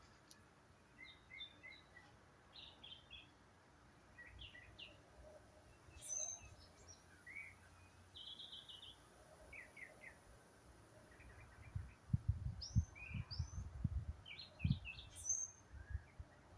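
Several wild birds chirping in short, repeated notes, with a couple of thin, high, rising calls. About twelve seconds in comes a run of low thumps, louder than the birdsong.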